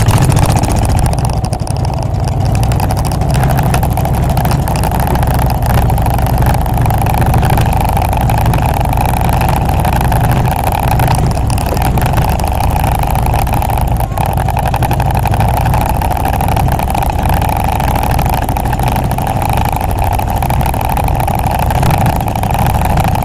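The motor of a small outrigger fishing boat running steadily under way, loud, with a constant low drone.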